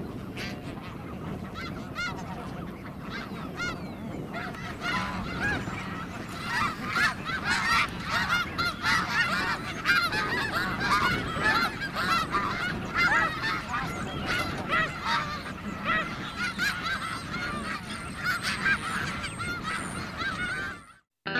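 A flock of snow geese calling: many short, overlapping honks that grow denser and louder after about five seconds, then stop suddenly near the end.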